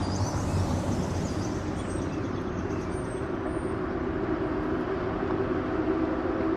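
Steady rumbling noise from an experimental industrial collage track, like a field recording of passing traffic or a train, with a faint hum in it. Faint high chirping fades out a few seconds in.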